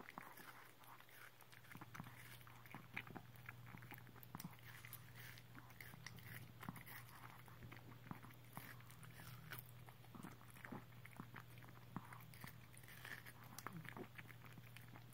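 A Pomeranian licking and biting at a slice of watermelon held in a hand: faint, irregular small clicks of licking and chewing, over a steady low hum.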